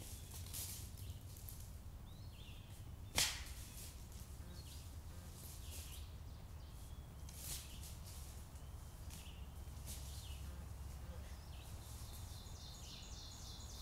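Woodland ambience: scattered short bird chirps over a faint steady background, with one sharp loud crack about three seconds in and a softer one about seven and a half seconds in.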